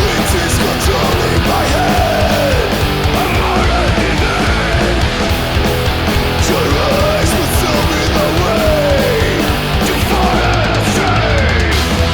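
Punk rock band playing loud: distorted electric guitars, bass and drums with crashing cymbals, and a melody line that slides up and down in pitch over and over.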